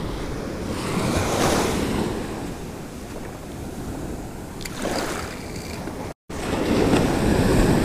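Ocean surf washing on the beach, the rush of the water swelling in waves every few seconds, with wind rumbling on the microphone. The sound drops out for an instant about six seconds in.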